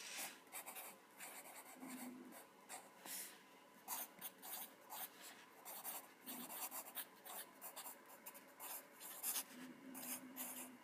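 Wooden graphite pencil writing on lined paper: short, irregular scratching strokes as words are handwritten.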